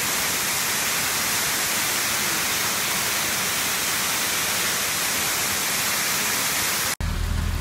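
Waterfall pouring down a rock face, a steady even rush of falling water that cuts off suddenly near the end.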